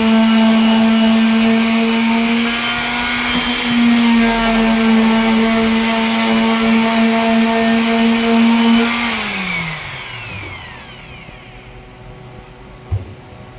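A sander motor runs at a steady high speed, then is switched off about nine seconds in and winds down with a falling pitch. A short knock follows near the end.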